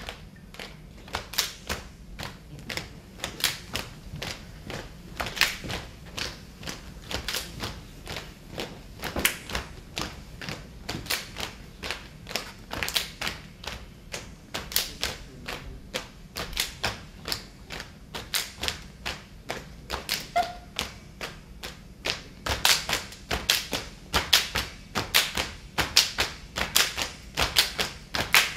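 Saman dancers' rhythmic hand claps and body slaps, struck in unison as a rapid, continuous pattern that grows louder about two-thirds of the way through.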